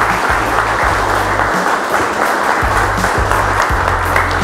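Audience applauding at the end of a talk, with background music and its low bass notes underneath.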